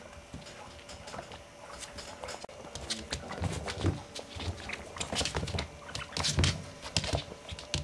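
Maltese puppies scuffling and play-fighting on a wooden floor: a scatter of quick claw clicks and scratches that gets busier about three seconds in, with a few soft thumps.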